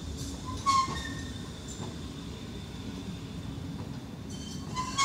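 Pesa tram rolling slowly past close by with a steady low rumble. Its wheels give two sharp metallic clanks, each with a brief ringing, one under a second in and one near the end, as they pass over rail joints or points.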